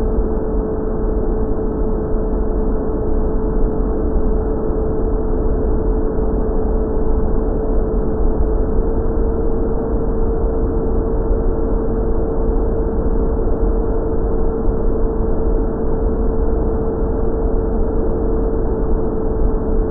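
Electric motor and propeller of an FPV racing wing in steady cruise: one constant humming tone over a steady rush of wind across the airframe. It is picked up by the onboard action camera's microphone and sounds dull, with no treble.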